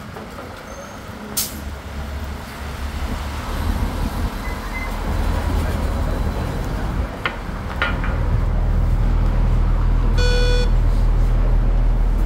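Metro Rapid articulated city bus running at the curb, its low engine and body rumble growing louder as it is boarded and pulls away. A few sharp clicks, and a short electronic beep about ten seconds in.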